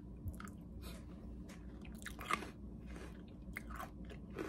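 A person chewing a mouthful of yogurt topped with crunchy freeze-dried strawberry and banana pieces, with faint, scattered crunches and one louder crunch about halfway through.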